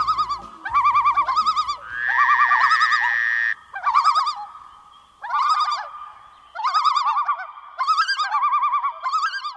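Warbling, bird-like calls in short repeated phrases about a second apart. A steady held tone comes in about two seconds in and stops just past three seconds.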